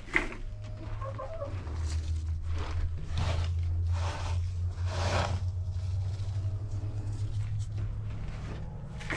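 Plastic cat litter scoop scraping and sifting through granular Sweet PDZ on a wooden poop board, several scrapes in a row in the middle. A hen clucks briefly about a second in, over a steady low hum.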